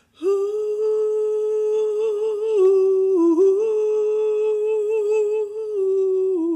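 A woman humming a long held note to demonstrate the men's opening riff, the pitch staying mostly level with small wavers and two brief dips, about three seconds in and near the end.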